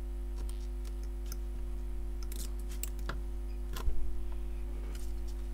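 Metal tweezers ticking and scraping on an iPhone 8 logic board as a sticker is peeled off: scattered light clicks, the loudest cluster just before four seconds in, over a steady hum.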